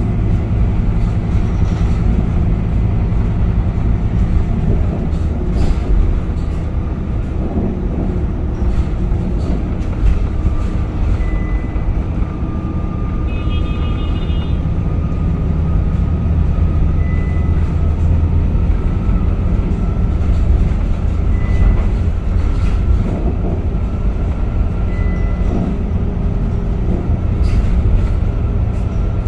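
A Scania K230UB single-deck bus's five-cylinder diesel engine running steadily under way, heard as a loud low drone with scattered rattles and clicks. A faint whine slowly rises in pitch through the second half, and a short beep sounds about halfway through.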